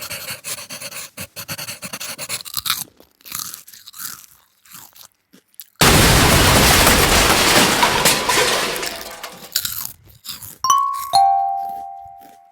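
Rapid crunching for about three seconds and then scattered crunches, followed by a loud rush of noise lasting about four seconds, then two ringing chime tones, the second lower and fading out near the end.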